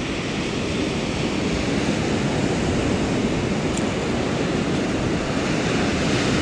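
Steady rush of ocean surf breaking and washing up a sandy beach, with wind on the microphone.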